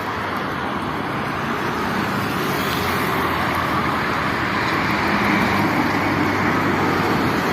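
Motor vehicle engine running with a low steady hum under continuous road noise, growing slowly louder.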